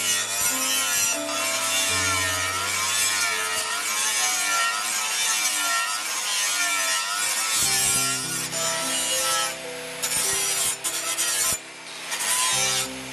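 Angle grinder with an abrasive disc grinding the bevel of a leaf-spring steel knife blade: a harsh, steady grinding hiss that breaks off briefly twice near the end as the disc is lifted from the steel. Background music plays underneath.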